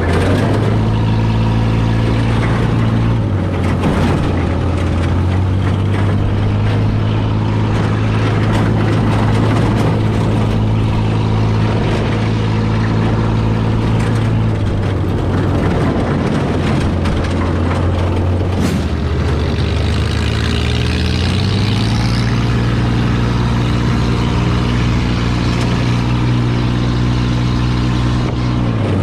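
Off-road buggy engine running while driving, its pitch stepping down and then climbing again as the speed changes, with scattered knocks throughout.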